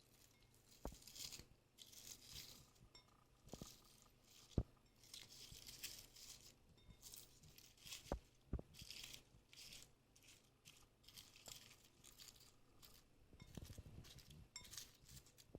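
Polystyrene foam beads crackling and crunching irregularly as they are pressed into sticky slime, with a few sharp clicks among them.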